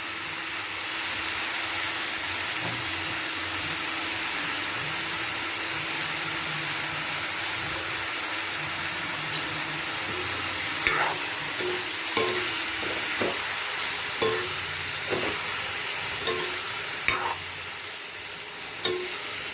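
Grated radish and onion frying in oil in a kadai, a steady sizzle. From about halfway through, stirring in the pan adds short clicks and taps.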